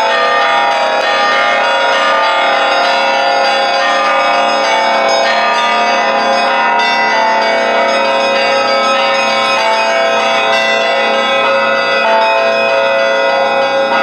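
Festive Russian Orthodox bell ringing: one ringer pulls the clapper ropes of a set of bronze church bells, large and small. The bells are struck in quick overlapping strokes, and their tones run together into a continuous peal.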